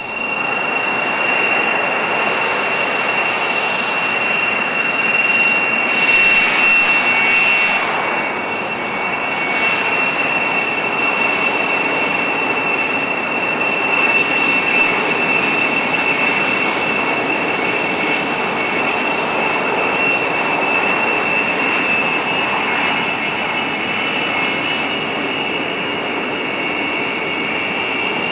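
Hawker Siddeley Dominie T1 jets taxiing, their Bristol Siddeley Viper turbojets giving a steady high whine over a loud rushing jet noise.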